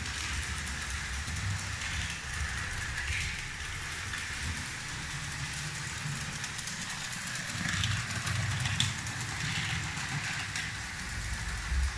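Lego 12V Western Express (set 726) toy train running along its 12V track, a steady mechanical whirr and rattle from its motor and wheels.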